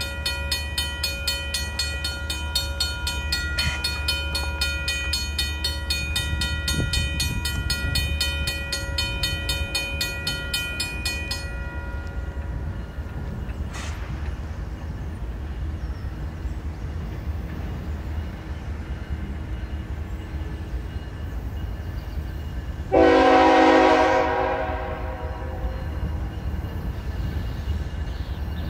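Railroad crossing warning bell ringing rapidly as the gate arm lowers, then falling silent about twelve seconds in, leaving a steady low rumble. About three-quarters of the way through, the approaching Canadian Pacific freight locomotive sounds one long horn blast, the loudest sound.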